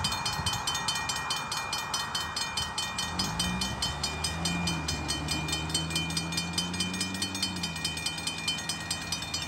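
Level-crossing mechanical bell ringing in rapid, even strokes while the crossing is active. A car engine is heard from about three seconds in as the car pulls across the tracks; it fades away near the end.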